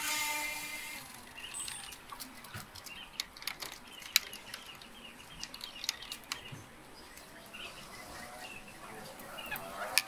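Birds chirping outdoors, with scattered sharp clicks and taps, the loudest about four seconds in. A rooster's crow dies away in the first second.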